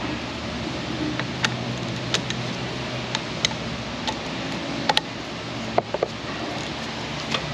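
Hand ratchet and socket being worked on an engine bolt, giving scattered sharp metallic ticks and clicks at uneven intervals, a few in quick pairs, over a steady low hum.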